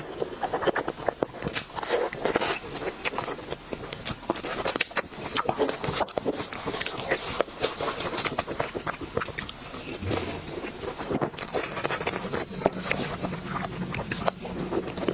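Biting and chewing sweets: a dense, irregular run of sharp little crunches and mouth clicks.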